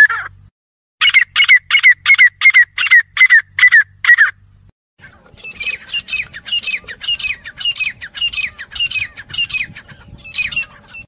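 Grey francolin calling: a run of about ten sharp, repeated notes at roughly three a second. After a short pause comes a second, quieter run of similar notes, with a faint steady hum behind it.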